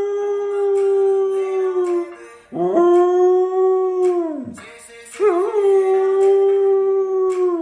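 Samoyed howling in three long, steady howls. The first ends about two seconds in, the second slides down in pitch as it fades, and the third begins about five seconds in.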